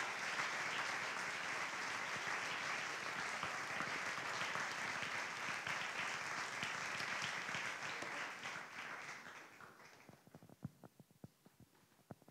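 Audience applauding steadily, fading out near the end to a few single claps.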